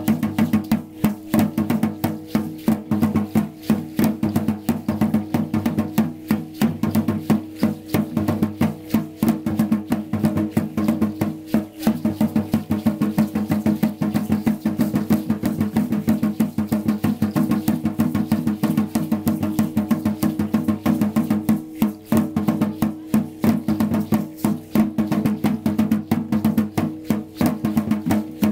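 Drumming for Aztec-style dance: drums beating a fast, steady rhythm with clacking percussion over it.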